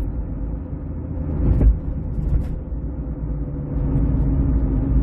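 Cabin sound of a 2006 Ford Escape Hybrid on the move: steady road rumble with a hum from the front that changes with road speed, growing louder toward the end, with a single thump about a second and a half in. The driver can't yet tell whether the hum comes from the tires, a wheel bearing, the brakes or the electric motor.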